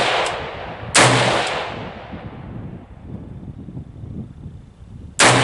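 Two shots from a Saint Victor AR-15 rifle, about four seconds apart: one about a second in and one near the end. Each is a sharp crack followed by a rolling echo that dies away over a second or so.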